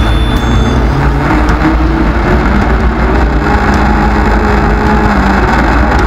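Off-road race vehicle's engine running hard at speed, heard from the hood over a heavy, steady rumble, its pitch stepping up and down as the driver works the throttle and gears.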